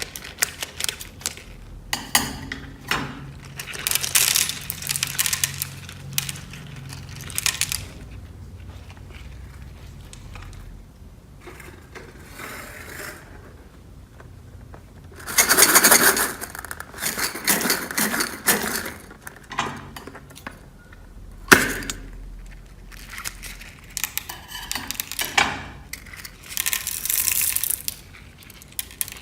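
Clear slime full of small beads being worked by hand, giving bursts of dense clicking and crackling as the beads rub and knock together, with quieter pauses between the bursts.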